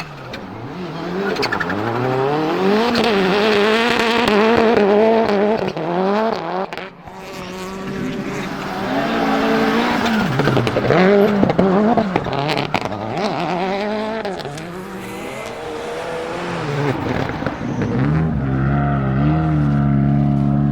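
Turbocharged 2.0-litre four-cylinder Lancia Delta Integrale engine in a rally Fiat Grande Punto, driven hard: the revs repeatedly climb and fall through gear changes. About seven seconds in the engine briefly drops off sharply, then picks up again, and near the end it settles to a steadier, lower note.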